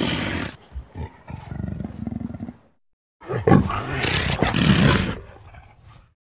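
Amur leopard calling in two bouts split by a brief gap of silence about halfway through. The first is a long call followed by a few short grunts. The second starts just after the gap and fades out before the end.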